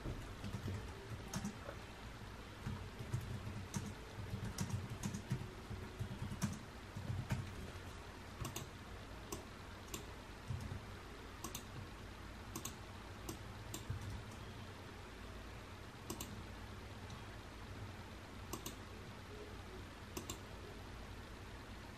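Computer keyboard typing in quick runs for the first several seconds, then sparse single mouse clicks every second or two.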